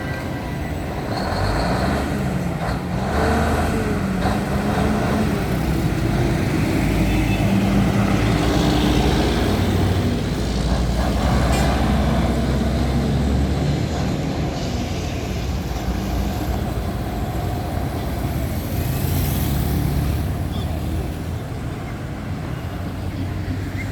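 Street traffic dominated by a diesel truck engine, its pitch rising and falling as it revs and labours. It is loudest through the middle, and a second engine passage rises and falls near the end.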